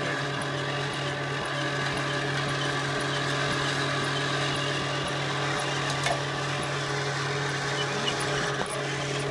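Kenwood Chef A701A stand mixer running steadily at speed 4, driving the A789 mincer attachment as it minces white fish: a constant motor hum with faint clicks from the auger and cutter.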